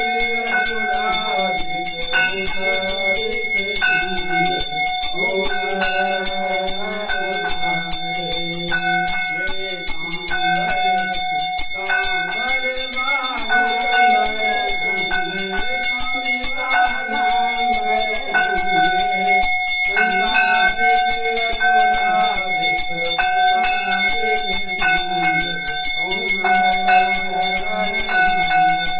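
A puja bell rung rapidly and without pause during an aarti, with voices singing the aarti over it.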